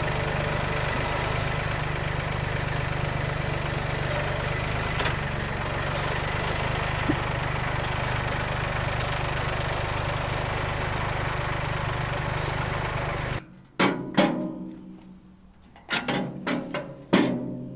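Massey Ferguson 1835E compact tractor engine running steadily. About thirteen seconds in it cuts off abruptly and gives way to a series of sharp knocks and clinks.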